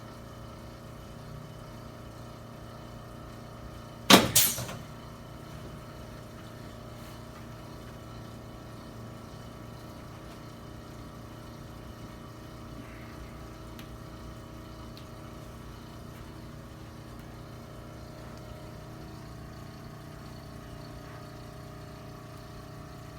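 Steady low mechanical hum, broken about four seconds in by one loud, sharp crack from a chiropractic adjustment.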